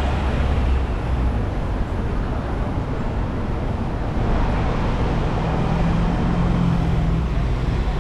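Busy city street traffic: a steady rumble of passing cars and buses, with one engine's low drone standing out from about halfway through until near the end.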